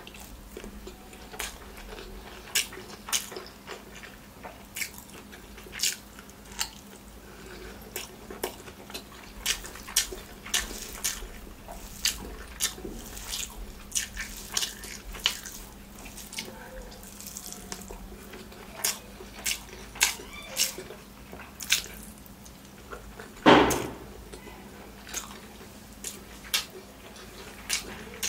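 Wet eating sounds from rice and mutton curry eaten by hand: sharp lip smacks and squelches at an irregular pace, with one louder, deeper sound about four-fifths of the way through.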